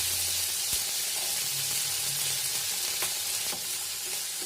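Finely diced potato sizzling in hot oil in a kadai, a steady frying hiss with a few light clicks of a spatula stirring.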